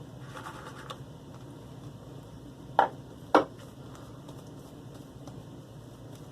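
Two sharp knocks about half a second apart, hard shaving gear striking a lathering bowl, over a faint low steady hum.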